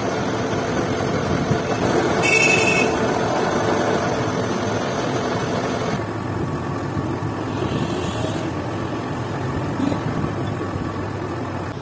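Metal lathe running steadily with a continuous mechanical hum. A brief high-pitched squeal rings out a couple of seconds in.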